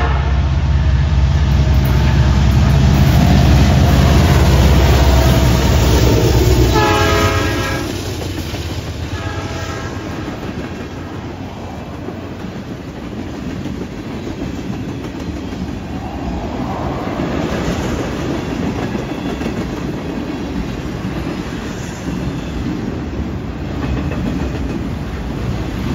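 Freight train passing behind two diesel locomotives, CN 8829 and BCOL 4642: a loud, deep engine rumble for the first seven seconds as the locomotives go by, short horn blasts about seven and nine seconds in, then tank cars and autorack cars rolling past with a steady rumble and clatter of wheels on rail.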